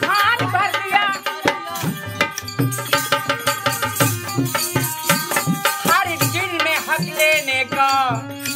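Indian folk song (lokgeet): a male lead singer sings a bending, ornamented melody over a harmonium's held notes and a dholak drum's steady beat, with sharp clicking percussion strokes on top.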